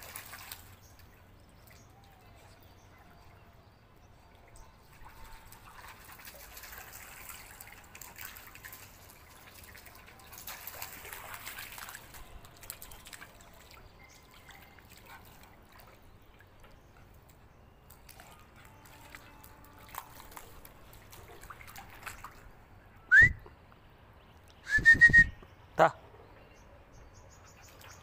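Faint splashing and trickling of a beagle's paws walking through shallow water on concrete. Near the end, two short high whistles, the first a quick upward glide and the second rising then held briefly, louder than everything else.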